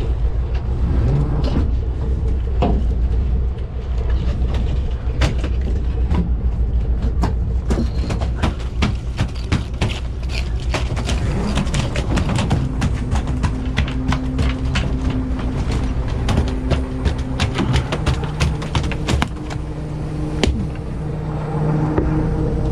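Fishing boat's engine running with a steady low rumble, a steadier hum joining it about halfway through. Over it, a dense run of sharp clicks and knocks from work on the deck close by.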